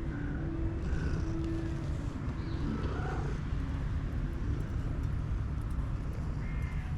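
A cat purring steadily close up, a dense low rumble, with a few faint short tonal chirps over it.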